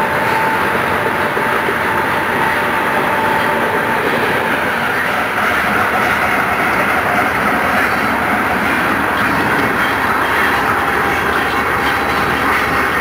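Coal train's steel hopper cars rolling past, a steady rumble and rattle of wheels over the rails. A faint thin wheel squeal fades out in the first few seconds.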